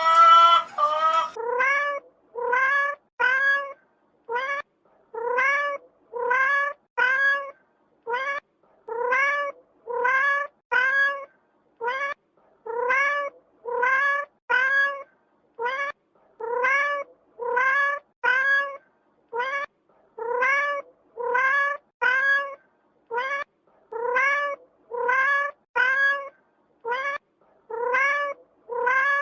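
A cat meowing over and over, short rising meows about once a second, each much like the last. A brief, different animal call at the very start runs into the first meows.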